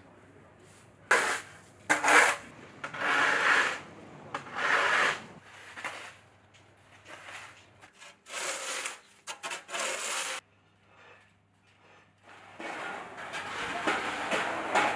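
Snow shovels scraping slushy snow along a paved alley in repeated strokes. There is a short pause about eleven seconds in, then a longer run of scraping that sounds like several shovels at once.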